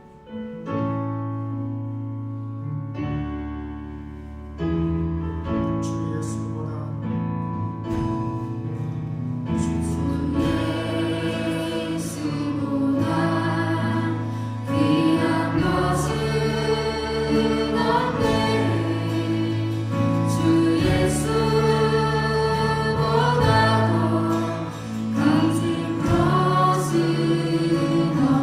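Church praise band playing a gospel-style worship song: sustained instrumental chords at first, then singers join about ten seconds in and the music grows fuller and louder.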